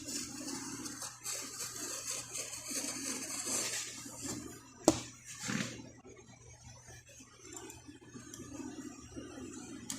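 Uneven rustling and shuffling handling noise, with one sharp knock about five seconds in.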